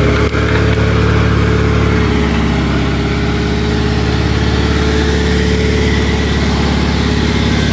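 Engine of a homemade mini crane running steadily at idle, with a steady whining tone over the engine note. A single click comes just after the start.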